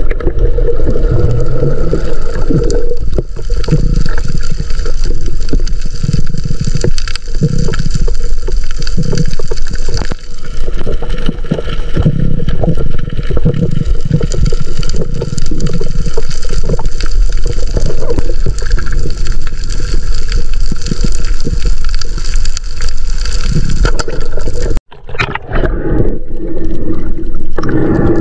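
Underwater rumble and gurgle of water moving against a camera as a spearfisher swims over a reef, with a brief dropout near the end.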